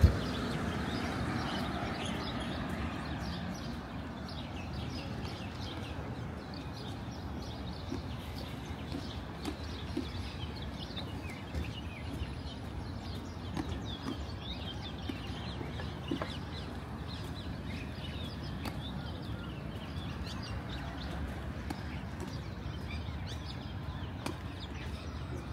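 Birds calling and chirping, many short scattered calls, over a steady low street rumble.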